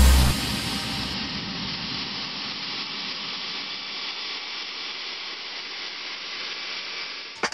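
Road train rolling past on a dirt road: a steady rushing noise that slowly fades.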